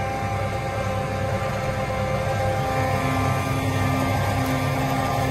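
John Deere 8320R tractor's six-cylinder diesel engine running steadily under load while pulling a tile plow at a crawl.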